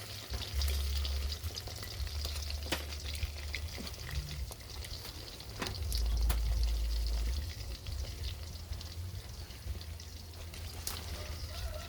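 Hot oil sizzling as food fries in a pan, with scattered sharp pops and a low rumble that comes and goes.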